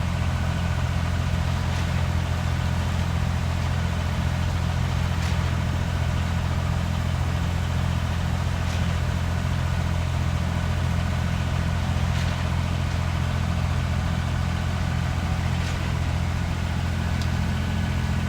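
Concrete pump truck's diesel engine running steadily at full throttle while pumping concrete, with a faint knock about every three and a half seconds.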